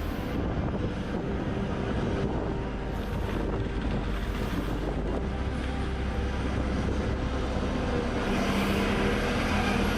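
Heavy machinery running steadily: a low engine drone under continuous mechanical noise.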